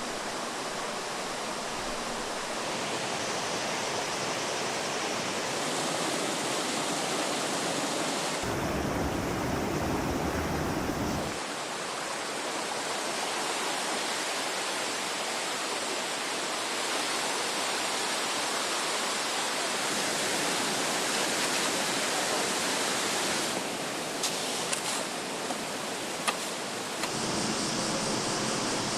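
Steady rushing of water from torrential rain and floodwater, its character changing abruptly several times as the footage cuts between scenes. A few short knocks near the end.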